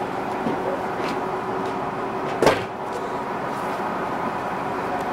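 Japanese diesel railcar's engine idling steadily at the platform, with a single sharp clunk about halfway through.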